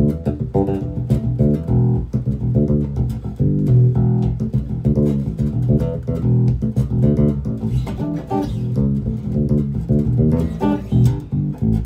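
Fodera Viceroy seven-string electric bass played fingerstyle: a continuous run of plucked notes, several a second, low and sustained.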